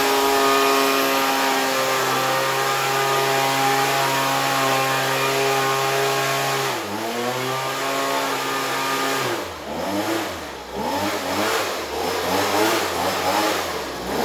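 Old Husqvarna two-stroke gas leaf blower running at high throttle with a steady high drone. About seven seconds in the throttle dips briefly and comes back. From about nine seconds the engine drops lower and is revved up and down over and over.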